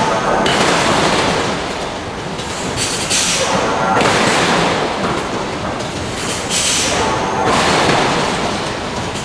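Hydraulic forging hammer working steel in a repeating cycle, a loud noisy surge about every three seconds.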